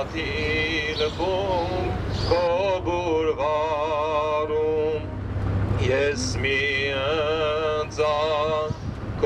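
A solo voice singing a slow chant in long, wavering held notes, over a low steady hum.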